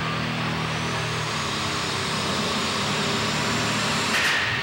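Methanol-burning light super stock pulling tractor's engine running loud and steady at the start line under a rising high whine, then opening up suddenly about four seconds in as the tractor launches into its pull.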